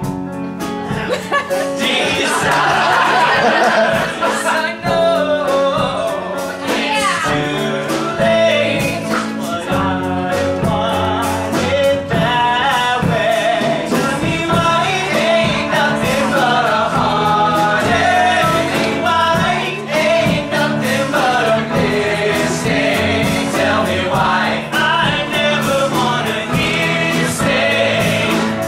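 Male vocal ensemble singing a 90s pop song in harmony with live band accompaniment.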